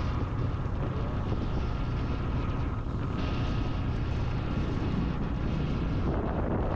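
A vehicle moving along a road, with wind rumbling on the microphone as a steady, even noise.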